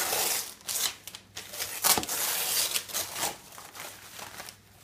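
Wrapping paper being ripped and crumpled by a toddler's hands in several quick tears. The loudest rip comes about two seconds in, and the sound dies down to light rustling near the end.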